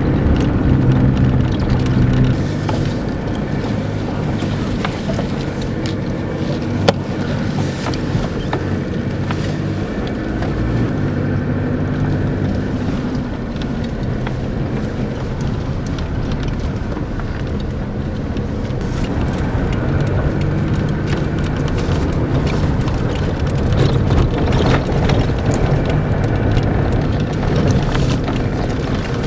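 Vehicle engine and tyre rumble heard from inside the cabin while driving on a rough unpaved desert track. The engine runs steadily with small changes in speed, and there is a single sharp knock about seven seconds in.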